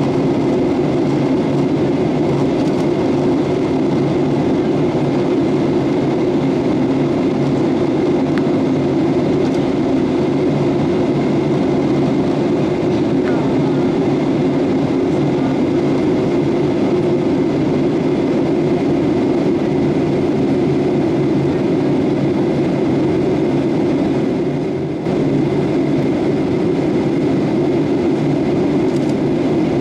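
Steady rumble of jet engines and rushing air heard inside an airliner cabin in cruise, with a faint constant whine above it. The level dips briefly once near the end.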